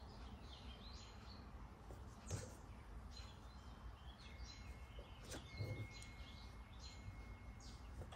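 A bird chirping faintly and repeatedly in short calls, with a thin held whistle in the middle. Two soft knocks, about two and five seconds in, come from fabric and pins being handled at the sewing table.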